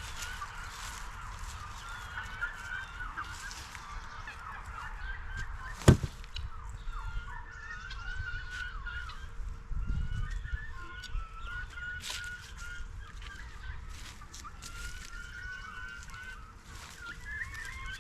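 Farmyard poultry calling over and over in short, wavering calls, with one sharp knock about six seconds in.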